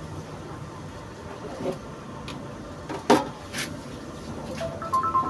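A digital multimeter with test leads being handled and pressed against the metal case of a power inverter: a few clicks and knocks, the sharpest about three seconds in. Near the end comes a short two-tone electronic beep.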